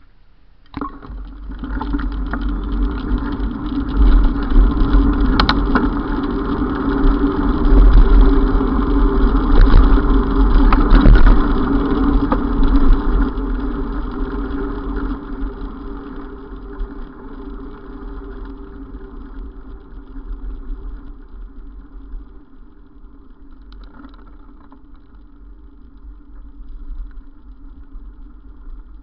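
Wind buffeting and road rumble on a bicycle-mounted camera while riding along a paved street, with a steady hum over it. It starts about a second in, is loudest around eight to twelve seconds in, then eases off.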